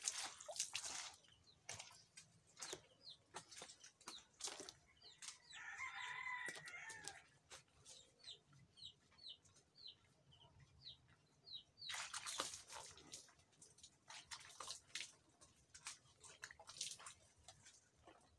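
A rooster crowing once, faintly, about six seconds in, over a series of short, high chirps from small birds. Water splashes from a dipper at the start and again about twelve seconds in.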